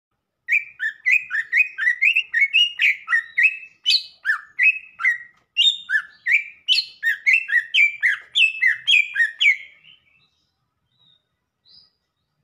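Cucak ijo (green leafbird) singing a fast run of loud whistled notes that alternate high and low, two to three a second. It stops about ten seconds in, followed by a couple of faint notes.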